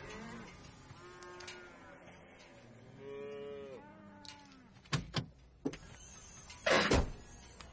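Two long, arching pitched tones, then a car door being handled: sharp clicks about five seconds in and a short, loud scraping burst near the end.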